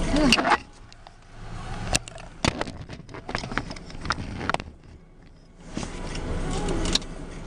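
Scattered light clicks and crackles, then from about six seconds in a steady low hum inside a car.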